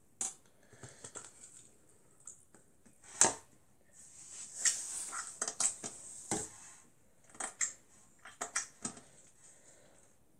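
Hands pressing, pulling and stretching clear slime in a plastic cup, making irregular sticky crackles and clicks, with one louder knock about three seconds in. The slime is getting rippy, tearing as it is stretched.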